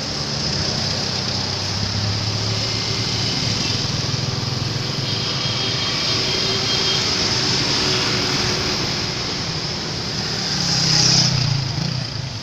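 Steady roadside traffic: vehicle engines and tyre noise, swelling as a vehicle passes close about eleven seconds in.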